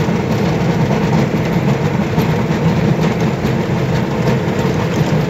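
Tractor diesel engine running at a steady speed, driving a PTO-powered rotavator that spins freely. The result is a loud, unchanging mechanical din.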